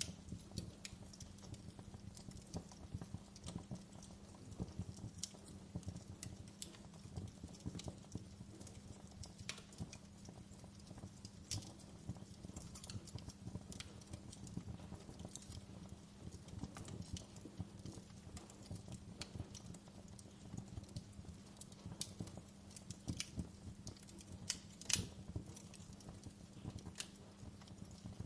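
Wood fire burning in a fireplace: a steady low rumble of the flames with irregular crackles and snaps throughout, and one louder pop near the end.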